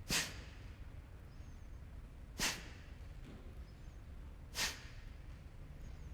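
Three short, forceful exhalations through the nose, about two seconds apart: Kapalabhati breathing, each breath pushed out sharply.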